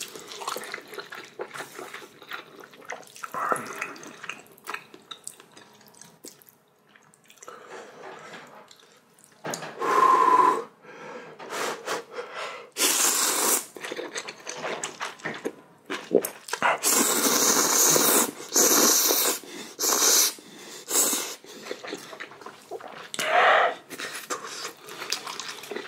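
Ramyeon noodles being slurped and chewed, with several long, loud slurps in the second half and many small wet clicks between them.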